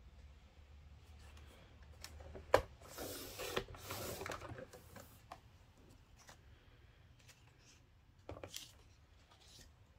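A sharp click about two and a half seconds in, then the blade head of a slide paper trimmer pulled along its rail for about two seconds, slicing through a strip of patterned paper. Light paper handling with small taps and rustles follows.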